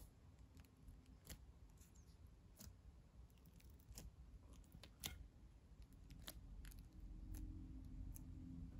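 Near silence, broken by faint sharp clicks about every second and a quarter as fingertips press dimples into oiled focaccia dough in a glass baking dish. A faint low hum comes in about six seconds in.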